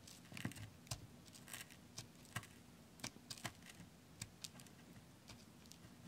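Faint, irregular light clicks and scratches of a wooden stick picking at the sticky backing sheet of a sand art board, a few small ticks a second.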